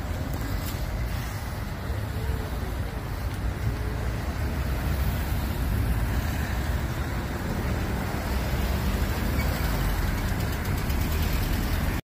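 Road traffic passing a level crossing: a steady rumble of engines and tyres that grows louder over the first five seconds and then holds.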